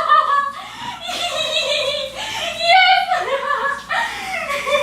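Voices laughing and exclaiming, high in pitch and sliding up and down, in reaction to the goop prank.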